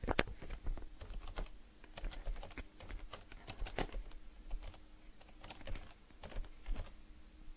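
Typing on a computer keyboard: a run of irregularly spaced keystroke clicks, some in quick clusters, with one of the louder strokes just after the start.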